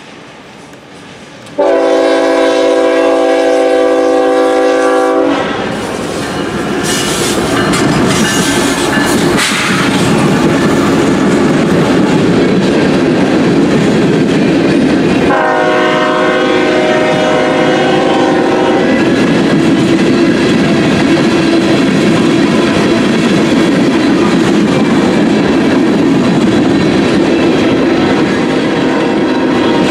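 Freight locomotive's air horn sounding one long chord of several notes as the train reaches the crossing, then the train passing close by, its cars rolling with a steady rush and wheel clacking. A second long horn blast of several notes sounds about halfway through over the noise of the passing cars.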